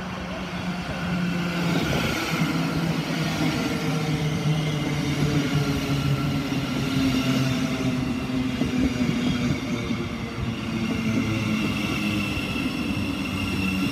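Thameslink Class 700 electric multiple unit running along the platform. Its traction motors and wheels give a steady rumble with several humming tones that shift in pitch, and a higher whine joins in near the end.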